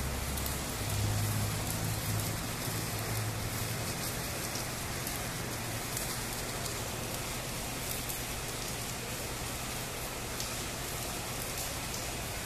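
Stick-welding arc crackling and sputtering steadily as an electrode burns along a vertical joint. A low hum sits under it for the first few seconds.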